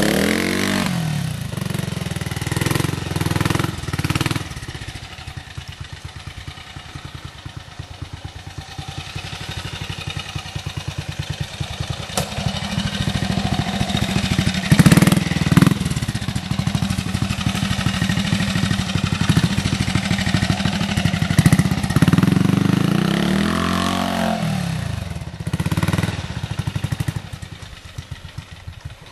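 Vintage trial motorcycle engine running at low revs as it is ridden through a trials section. The revs drop away in the first second, the throttle is blipped around 3–4 s, 15 s and 21 s, and the pitch rises and falls again a little before the end.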